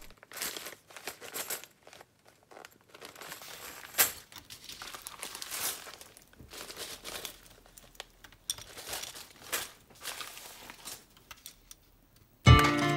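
Plastic Lego pieces clicking and rattling as they are picked from a loose pile and fitted into a model building, with one sharper click about four seconds in. Music comes in loudly just before the end.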